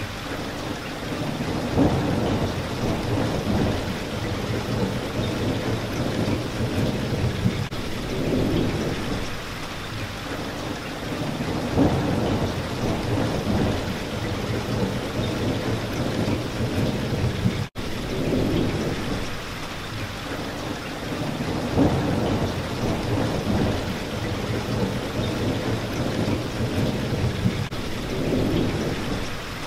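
Steady rain with low, rolling thunder, the rumble swelling about every ten seconds. The sound cuts out for an instant a little past the middle.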